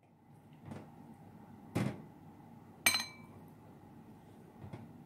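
Pieces of drained tofu being set into a glass bowl: a few soft knocks and thuds against the glass. About three seconds in comes one sharp glass clink that rings briefly, the loudest sound.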